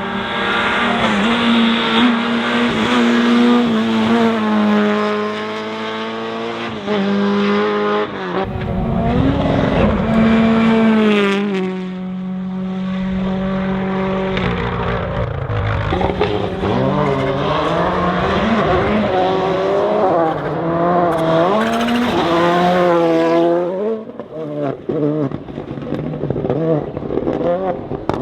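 Rally car engines running hard at high revs, the pitch climbing and dropping again and again as the car shifts gear and lifts off. About eight seconds in, a harsh rushing noise joins for a few seconds.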